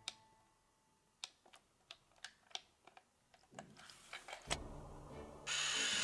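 A series of small, sharp clicks, roughly three a second, like plastic parts of a scale model being worked. Then a rumble builds, and near the end a loud, even hiss cuts in.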